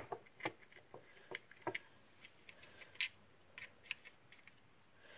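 About a dozen light, irregular clicks and taps of small plastic parts being handled: the pink top and base of a mini desk vacuum taken apart and set down on a wooden table.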